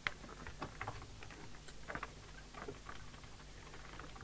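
Light, irregular clicks and taps, a few to the second and unevenly spaced, over a faint steady low hum.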